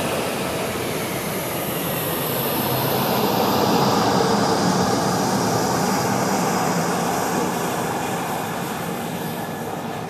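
Fighter jet engine noise, a steady rushing sound that builds to a peak about four seconds in and then slowly fades.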